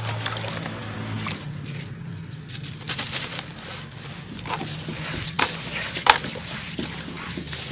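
Charcoal-sand clumps crumbling apart in water: a run of small crackles and pops, with two sharper cracks about five and a half and six seconds in.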